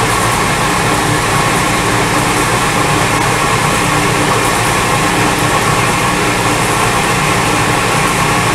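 Machine tool running steadily as a number drill bores a clearance hole in metal.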